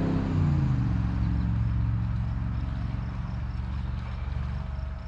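A motor vehicle passing by: its engine tone drops in pitch at the start, then a low rumble that slowly fades away.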